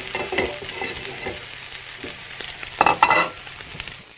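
Steaks searing in a very hot frying pan: a steady sizzle with fine crackles of spitting fat, louder for a moment about three seconds in.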